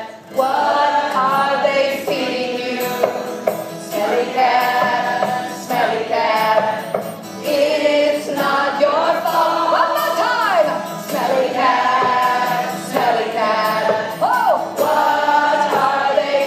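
Group singing along with a woman's lead voice, accompanied by two strummed acoustic guitars.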